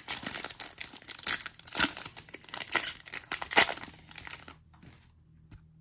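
Trading card pack wrapper being torn open and crinkled by hand, a dense crackling that stops about four and a half seconds in.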